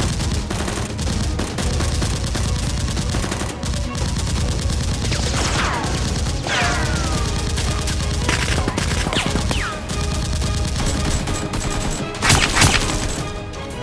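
Rapid gunfire sound effects, a dense crackle of shots laid over the blaster fight, with several falling whistles like ricochets in the middle and a louder burst near the end, under background music.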